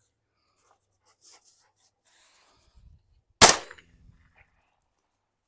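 A single shot from a Charles Daly Model 101 .410 single-barrel shotgun, about three and a half seconds in, with a brief echo trailing off after it.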